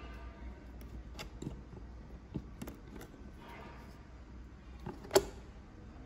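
Small clicks and rustles of hands handling servo-style plugs and wiring inside a foam airframe, with a sharper click about five seconds in.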